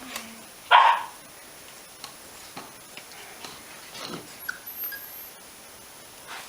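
Five-week-old Icelandic Sheepdog puppy giving one short, loud yip about a second in, the owner's read being that he is crying to be let out. Faint scattered ticks and a couple of small squeaks follow.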